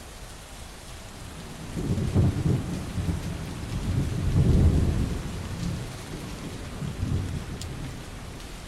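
Steady rain hissing, with a low rolling rumble of thunder that swells about two seconds in, peaks twice and dies away near the end.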